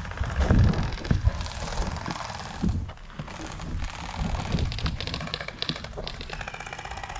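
Gel blasters firing in rapid clicking rattles, most of them in the second half. There are several dull thumps in the first second or so.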